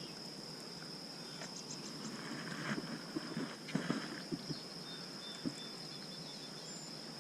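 Insects trilling steadily at one high pitch, with a few faint knocks and rustles around the middle.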